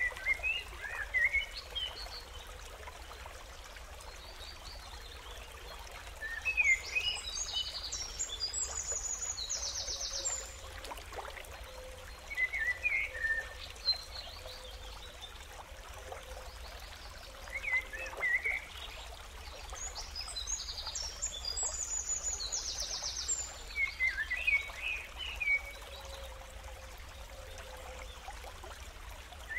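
Birds chirping outdoors: groups of short chirps and quick trills every few seconds over a steady background hiss.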